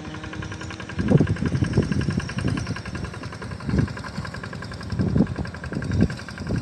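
A small engine running with a fast, even rattle, under irregular low rumbles.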